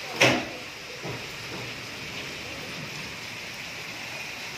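Heavy rain falling steadily as an even hiss, with one sudden loud sharp bang about a quarter of a second in that dies away quickly.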